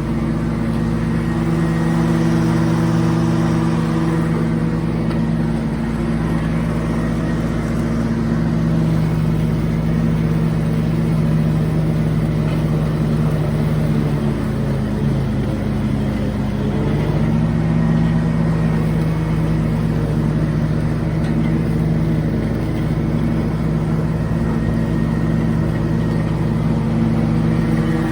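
A car engine running steadily, its pitch dipping briefly about halfway through and then climbing back.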